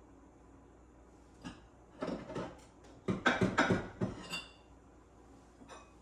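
Dishes and containers knocking and clattering as they are moved about in a kitchen cabinet: a burst of sharp knocks about two seconds in, ending with a short ringing clink, then a single click near the end.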